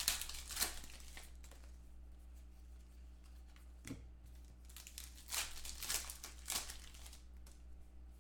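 Football trading cards and their clear plastic holders being handled and sorted by hand, making several short rustling swishes and one light tap, over a faint steady low hum.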